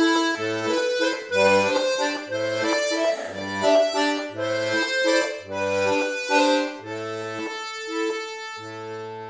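Two-row diatonic button accordion playing a tune, the melody over alternating bass notes and chords about once a second. It ends on a held final chord near the end.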